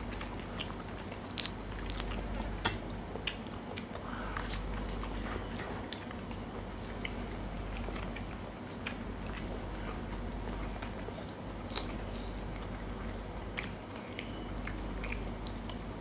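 Close eating sounds: chewing and biting into crab pieces, with scattered short sharp clicks throughout, over a steady low hum.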